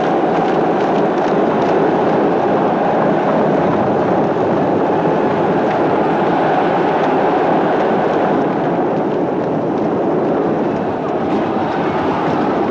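Chariot race din: galloping horse teams and rumbling chariot wheels, a loud, dense, unbroken rumble.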